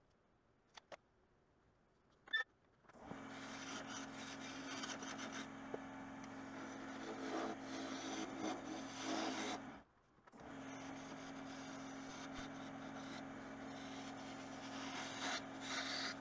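A few faint clicks and one sharp click, then about three seconds in a wood lathe starts and runs with a steady motor hum while a turning tool cuts and scrapes the spinning rolling-pin blank. The hum and cutting break off abruptly near ten seconds and resume half a second later.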